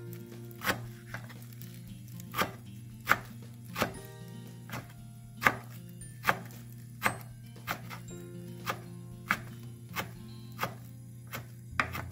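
Chef's knife slicing through kimchi and knocking on a wooden cutting board, about three strokes every two seconds with sharp, even knocks.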